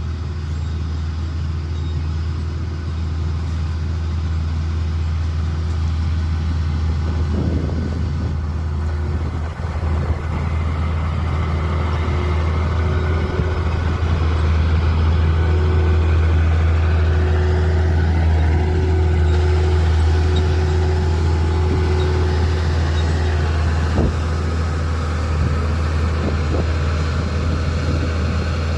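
Diesel engine of Komatsu heavy earthmoving equipment running steadily with a deep drone, getting a little louder over the first several seconds.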